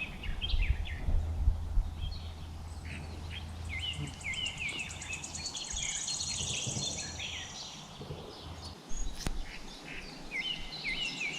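Small songbirds chirping and singing, with a fast high trill around the middle. A low steady rumble underneath stops about nine seconds in.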